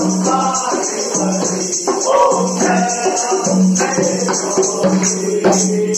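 Live devotional aarti music: voices singing over a hand drum, with a steady jingling of metal percussion throughout.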